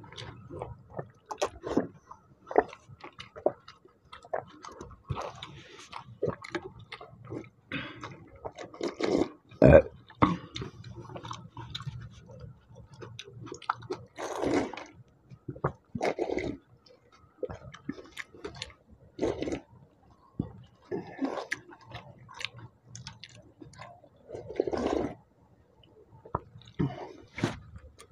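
Eating panta bhat, rice soaked in water, by hand: wet squishing as fingers work the watery rice, chewing, and several longer slurps as the soaking water is drunk from the plate.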